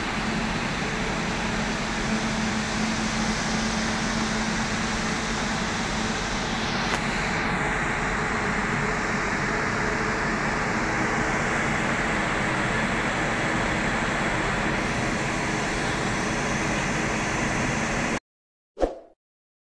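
WAG-9HC electric locomotive standing with its auxiliaries running: a steady rushing hum of blowers and cooling fans, with a faint steady tone in the first third. Near the end it cuts off suddenly and a single short chime sounds.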